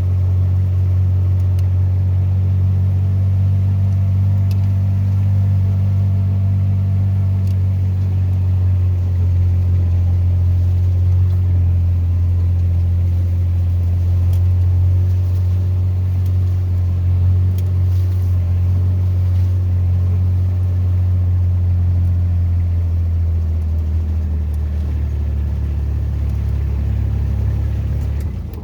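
A vehicle's engine running steadily with a low drone, its pitch dropping in the last few seconds as it slows, then stopping abruptly.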